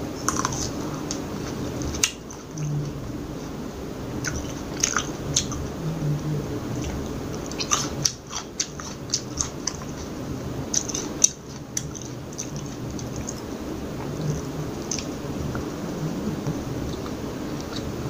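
Close-miked chewing of a sweet, crunchy seedless green grape: wet crunches, squishes and mouth clicks, coming irregularly and thickest in the middle.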